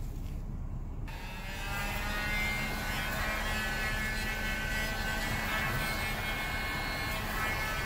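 Electric heat gun switched on about a second in, its fan running steadily with a high whine.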